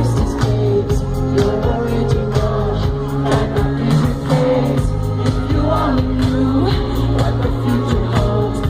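Live amplified pop music from a concert: heavy sustained bass and a steady drum beat under a sung vocal line, with crowd noise in the hall.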